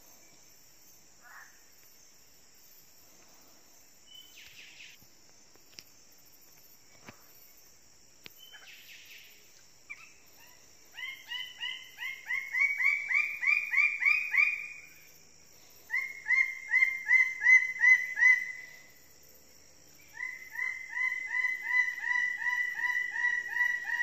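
Lesser bird of paradise calling: three loud bouts of quickly repeated notes, about four or five a second and rising slightly in pitch within each bout, starting a little before halfway through. A steady high hiss of insects runs underneath.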